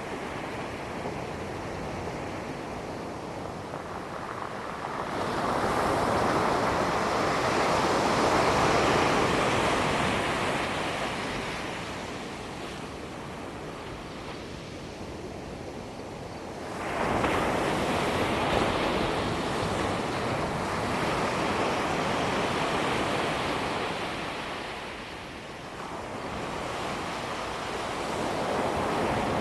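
Ocean surf breaking and washing up a sandy beach, the rush of water swelling and fading in long surges. Three surges: the first builds gradually, the second starts abruptly a little past halfway as a wave breaks, and the third begins to rise near the end.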